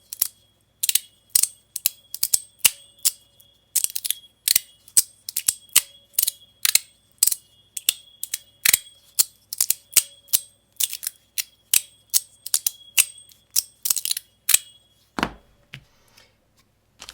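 JuzhEDC Armor fidget slider with its tuning forks fitted, slid back and forth: sharp snapping clicks, about two to three a second, and the tuning forks ringing a steady high tone between them. The clicking stops near the end, followed by a soft thud.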